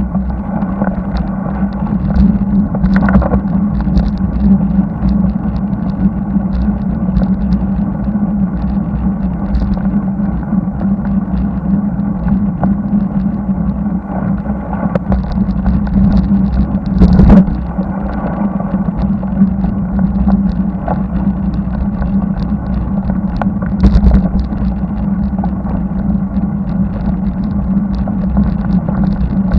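Steady rush of wind and tyre noise picked up by a bicycle-mounted camera while riding on an asphalt highway, with three brief knocks from bumps.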